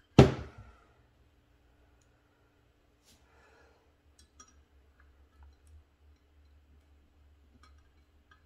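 A single thump just after the start, then faint, scattered small metallic clicks and taps as brass jets are handled and threaded into the Rochester 4Jet carburetor body by hand.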